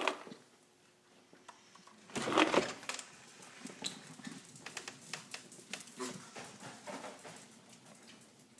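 Puppies' claws clicking and pattering on the floor as they scamper and play, with a louder scuffling thump about two seconds in.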